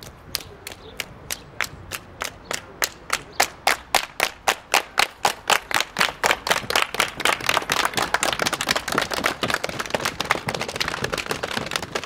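A group clapping together in a 'rocket' build-up. The claps start slow and even, speed up and grow louder to about five a second, then blur into a fast, dense patter like applause.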